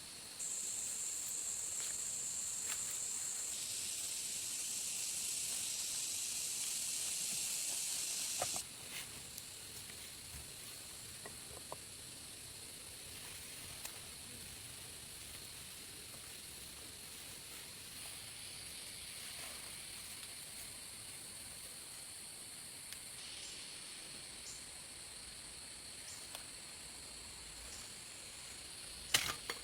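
Loud, steady, high-pitched insect buzzing that starts just after the beginning and cuts off suddenly about eight and a half seconds in. A fainter steady insect drone carries on after it, with a few small clicks near the end.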